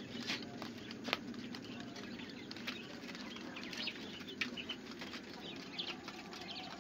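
Quail pecking at crushed grain in a plastic feed trough: irregular light taps and clicks of beaks on the feed and trough.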